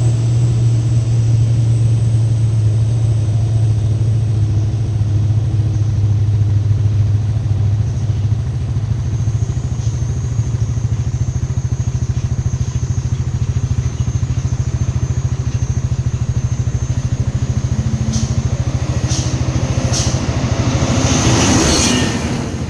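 Steady low drone of a motor vehicle running, with a few sharp clicks and a swelling rush of noise near the end.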